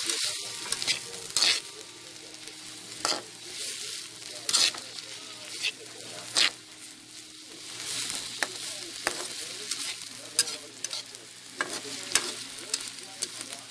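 Broccoli and carrot stir-frying in hot oil in a pan: a steady sizzle, with sharp scrapes and knocks from the stirring every second or two.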